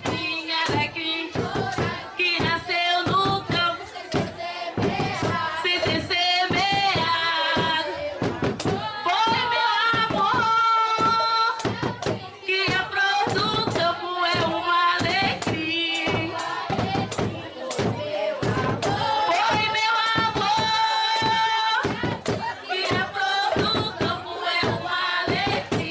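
Boi-bumbá music: a sung melody over a steady, driving percussion beat.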